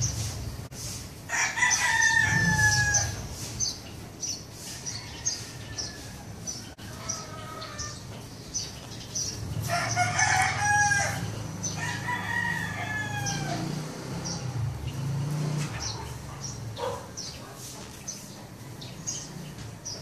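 Roosters crowing several times, with the loudest crows about two seconds in and again around ten and twelve seconds in, over steady chirping of small birds. A low hum runs underneath for several seconds in the middle.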